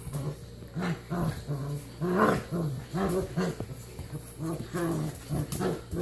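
Five-to-six-week-old puppies growling in short, repeated growls while play-fighting, about two a second, with one louder, higher growl about two seconds in.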